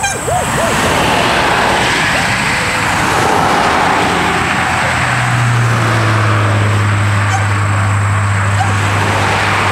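A motor vehicle running close by: a rushing noise, then a steady low engine hum that sets in about halfway through.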